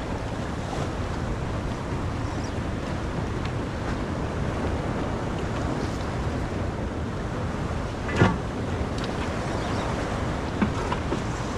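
Steady wind buffeting the microphone over the wash of waves, with one sharp knock about eight seconds in and a smaller click near the end.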